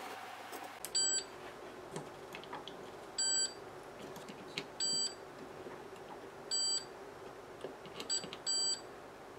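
Fluke 37 multimeter beeping as its test probes touch the leads of components on a circuit board during a check for shorted semiconductors. About six short, even beeps come at irregular intervals, roughly one every one to two seconds, two of them close together near the end.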